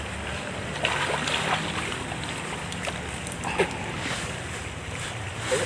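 Steady rush of water in a shallow stream in a concrete channel, with a few brief splashes from someone wading and washing in it.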